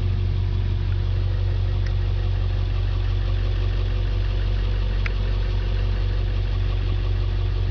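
International 4700 medium-duty wrecker's diesel engine idling steadily, heard from inside the cab as a constant low drone.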